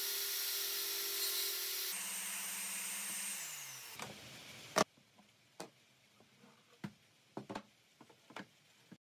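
DeWalt jobsite table saw running steadily while the spline slots are cut in the tray's mitred corners, then switched off and winding down with a falling pitch about three and a half seconds in. After it come light clicks and knocks of wood being handled on the saw table, with one sharp click just before the five-second mark.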